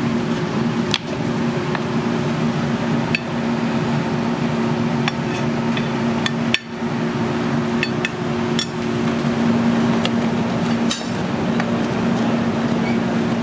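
Steel tongs and a knife clicking and clinking against a plastic cutting board and a plate as a grilled porterhouse steak is sliced and plated. Scattered sharp clicks over a steady hum.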